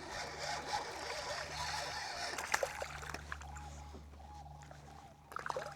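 A small hooked bass being landed beside a kayak: water splashing, with scattered knocks and rubbing against the boat and a short cluster of knocks near the end.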